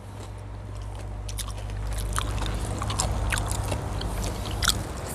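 Close-up chewing and biting of crispy fried pork skin from crispy pata, with scattered short crunches over a low steady rumble.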